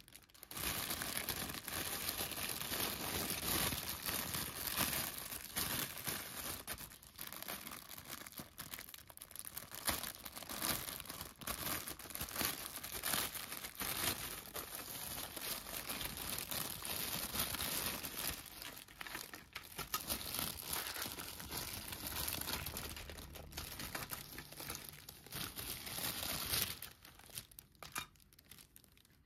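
Thin clear plastic bag crinkling as hands rummage through it, with loose plastic toy pieces knocking together inside. The crinkling is dense and crackly, and it drops away near the end.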